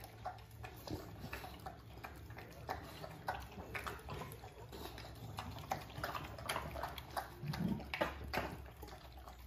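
Two American Bully dogs eating wet food from bowls: irregular wet smacking, licking and chewing sounds throughout.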